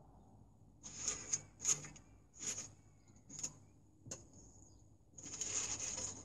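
Crumpled newspaper rustling and sharp metal clicks as a small Hawk wood-burning stove is lit for its first burn, its little firebox door and latch handled; a string of short bursts, with a longer rustle near the end.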